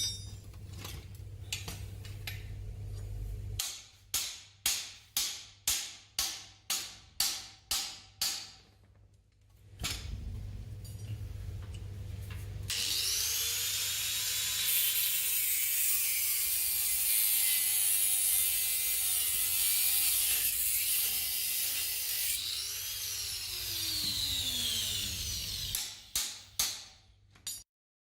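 Workshop tool work on an engine part: about ten quick strokes of a hand tool, roughly two a second, then a power tool running loudly for about ten seconds, its pitch sliding up and down, before a few more strokes and a sudden stop.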